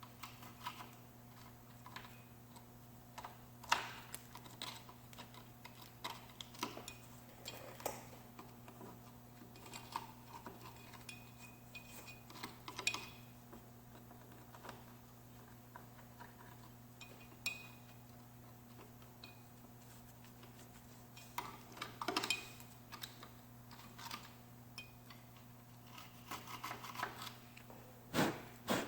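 Scattered light clicks and clinks of small hard objects being handled, a few louder knocks near the middle and end, over a steady low hum.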